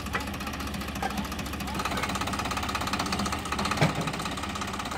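Eicher 650 tractor's diesel engine running steadily at a low, even pulse, with a short knock about four seconds in.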